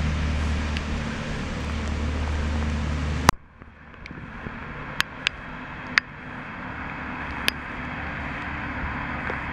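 Steady low outdoor rumble, broken by one sharp click about three seconds in, after which the rumble drops away and slowly builds back; a few fainter sharp ticks follow.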